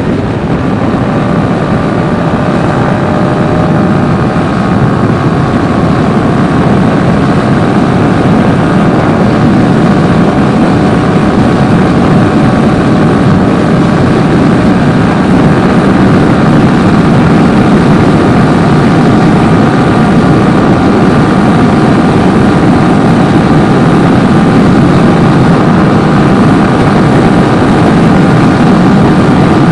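Wind rushing loudly over the microphone of a motorcycle riding at highway speed, with the motorcycle's engine running steadily underneath.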